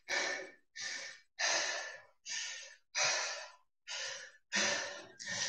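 A man breathing hard after an intense cardio workout, catching his breath: deep in-and-out breaths, about one every second and a half, each outward breath stronger than the inward one.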